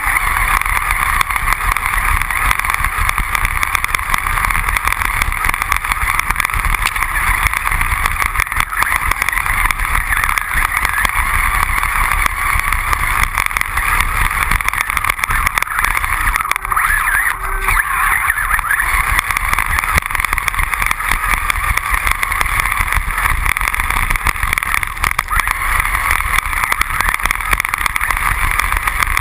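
Hobbyking Turnigy 1/10 brushless RC buggy driving over snow, heard on board the car: a steady, even mix of motor and drivetrain whine with tyres churning through snow. It eases briefly a little past halfway.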